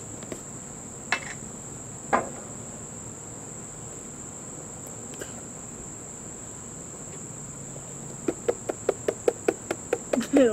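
Steady high insect chorus in the background. Two single sharp knocks about one and two seconds in, then near the end a quick run of sharp taps, about five a second.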